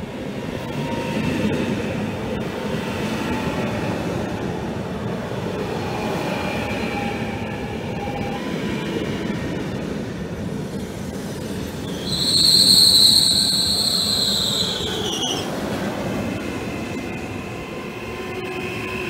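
Trenitalia ETR621 'Rock' double-deck electric multiple unit running past along the platform, with a steady rumble of wheels on rail and a faint motor whine. About twelve seconds in, a loud high-pitched squeal from the running gear rises over it, lasts about three seconds, dips slightly in pitch and stops.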